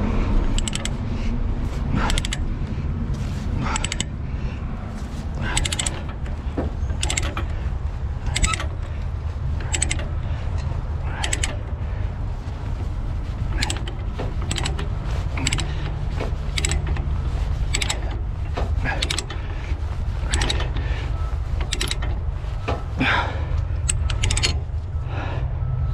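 Ratchet chain binder being cranked to tighten a tie-down chain, clicking with each stroke of the handle, roughly once a second and unevenly, over a steady low hum.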